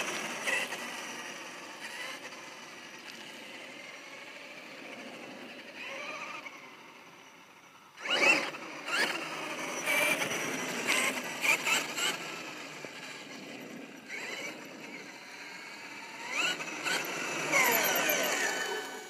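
Traxxas X-Maxx electric RC monster truck's brushless motor and drivetrain whining, the pitch rising and falling as it speeds up and slows, with tyre noise. Sharp loud bursts of acceleration start about eight seconds in, and again near the end as it drives up close.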